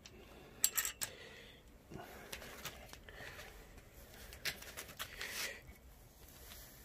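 Two light clicks a little under a second in as a steel hook is worked into the steel tube of a hammock stand, then soft handling noise.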